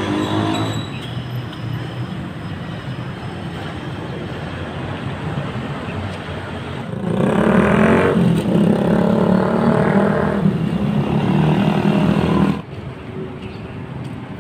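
Street traffic noise with vehicle engines running. About seven seconds in, a louder, steady engine hum comes in for roughly five seconds, then cuts off abruptly.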